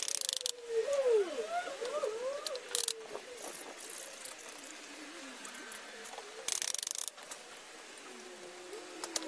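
Three short bursts of scraping and rattling from hand work on a brick-paver path: one at the start, one about three seconds in, one about six and a half seconds in. Between the first two, gliding warbled calls sound in the background.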